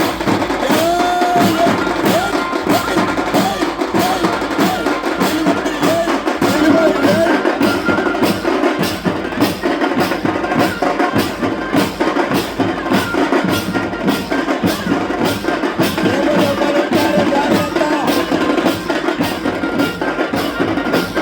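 Loud music with a fast, steady drumbeat, with a wavering melody line running over it.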